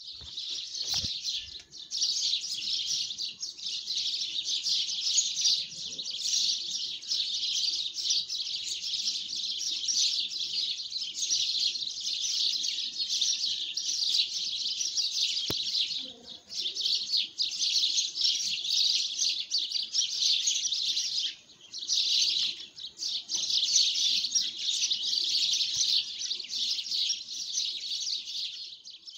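A dense chorus of many small birds chirping, high-pitched and continuous, breaking off briefly twice in the second half.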